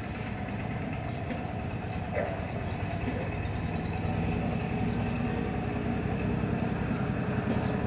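Engine running steadily with a low rumble that grows slightly louder, and a few faint high squeaks over it.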